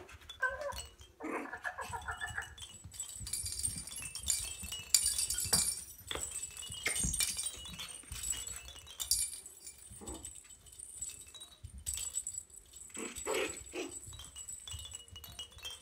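Maltese puppies playing, with short yips and growls in the first couple of seconds and again near the end. Between them a small bell inside a hanging plastic ball toy jingles and clinks as the puppies bat the toys.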